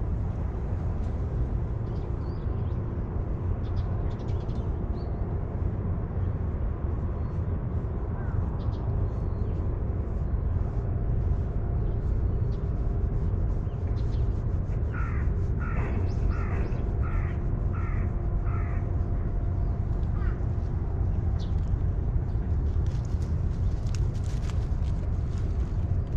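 A crow cawing about halfway through: six harsh caws in quick succession, then one more, over a steady low rumble.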